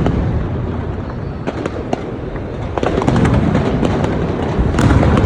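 Fireworks display going off in quick succession: a dense crackle of sharp pops over a steady low rumble of booms, heavier about three seconds in and again near the end.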